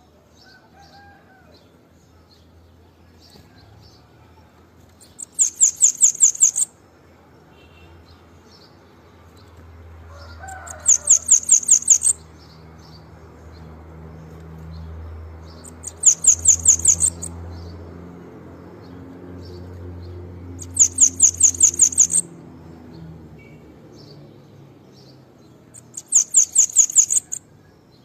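Bananaquit (sibite) singing: five short bouts of rapid, very high, thin repeated notes, each about a second and a half long, coming about every five seconds. A steady low hum runs underneath.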